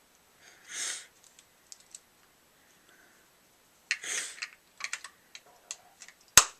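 Small clicks and rustling from handling a battery and the grip frame of a paintball marker during a battery swap, with one sharp, loud click near the end.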